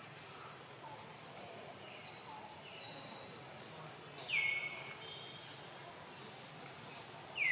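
Forest birds calling: a few short down-slurred calls that drop sharply and then hold a note briefly, faint ones about two to three seconds in and a loud one a little after four seconds, over a faint background hiss.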